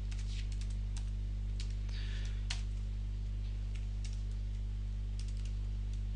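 Computer keyboard typing: irregular key clicks as code is entered, over a steady low hum.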